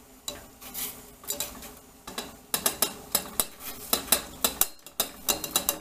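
A metal spoon scraping and tapping against a plate and the rim of a stainless steel saucepan as sliced okra is pushed into the water. Scattered clicks at first, then a quick run of about three or four clinks a second from about halfway.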